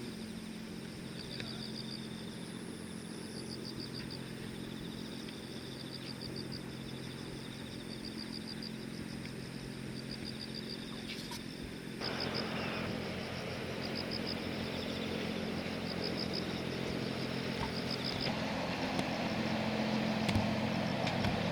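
Harbour-cleaning boat's engine running with a steady low hum; about halfway a rushing noise comes in suddenly and grows louder toward the end. High, pulsed chirping repeats about once a second over it.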